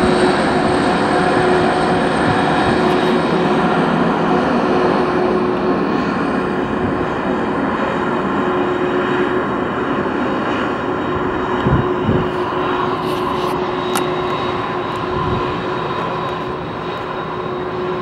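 Boeing 767-300's twin jet engines running at taxi power, a steady rushing noise with a held whine, slowly getting quieter.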